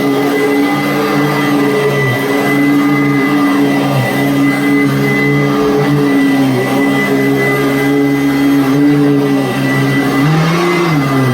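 Commercial vacuum cleaner running steadily with a high whine. Its motor pitch sags briefly every few seconds and swings up near the end as the load on the nozzle changes.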